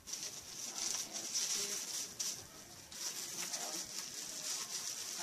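Rustling and crinkling of packaging being handled, in uneven bursts with a brief dip about two and a half seconds in.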